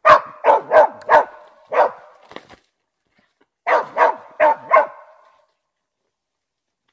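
Russian-European laika barking: a run of five barks, a pause of about a second, then four more in quick succession. The dog is baying at a raccoon dog hiding under a pile of fallen trees.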